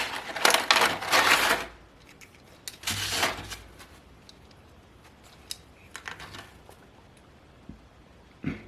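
Toy packaging being handled: a stretch of loud crinkling and crackling of plastic and cardboard for the first second and a half, shorter bursts about three and six seconds in, small clicks between, and a dull thump near the end.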